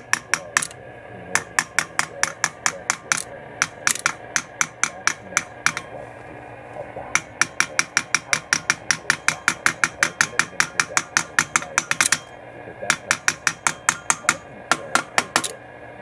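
Rapid, even clicking, about six clicks a second in runs with short pauses, as the thyratron tube in a Philco 40-217 remote-control radio is tapped and the set's solenoids engage with each tap. The tube's filament is open, and tapping makes it connect for a moment.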